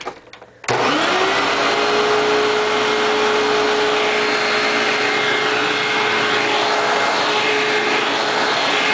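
Hoover WindTunnel Ultra upright vacuum cleaner switched on about two-thirds of a second in. Its motor spins up with a quick rising whine, then runs steadily.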